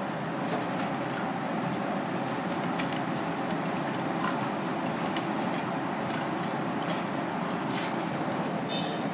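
Steady background rumble, with scattered small clicks and taps from a knife and hands working a fish fillet on a plastic cutting board.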